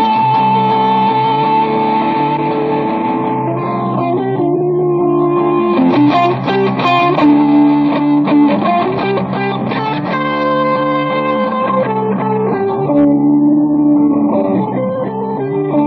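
Electric guitar playing hard rock: long held notes and chords that change every few seconds.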